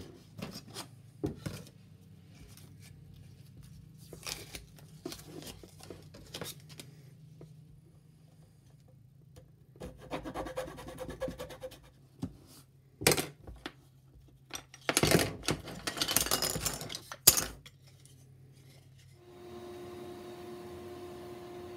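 Short runs of rasping strokes as a small hand saw cuts apart a thin wooden strip glued into the tread grooves of clamped wooden model wheels, with light clicks and rubbing from handling the work between them. About two seconds before the end, a handheld rotary tool starts and runs with a steady hum.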